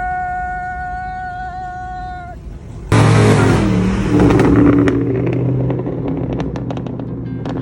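A steady high whine stops about two seconds in. Then a Dodge Charger's V8 engine bursts into a loud, hard acceleration, followed by a run of sharp crackling pops as the revs settle.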